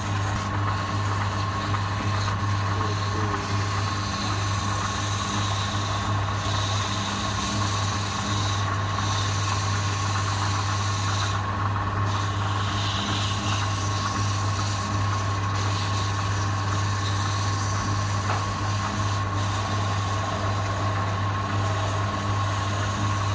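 Wood lathe running steadily, a low hum with a thin higher whine, while a turning tool scrapes and cuts the spinning wood.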